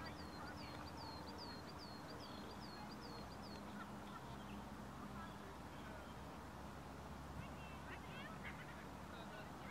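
A small bird repeating a short, high note that falls in pitch, about three times a second, until it stops about three and a half seconds in. A few other bird chirps come near the end, over a faint, steady low rumble of background noise.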